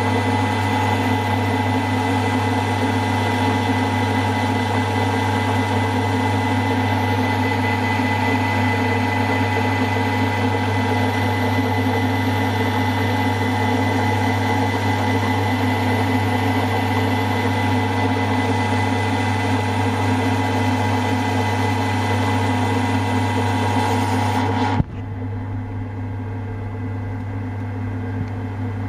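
Milling machine running with a 1/8 in end mill cutting through a small casting: a steady hum with a hiss of cutting. About four-fifths of the way through, the sound drops abruptly to a quieter, duller running.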